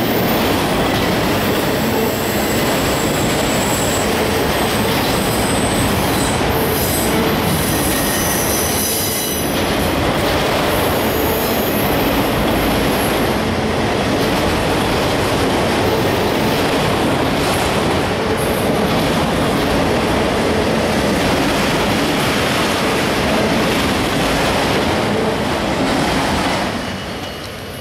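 CSX freight train's autorack cars rolling past close by: a steady rumble and clatter of steel wheels on rail. High-pitched wheel squeal comes and goes in the first half. The sound drops off near the end.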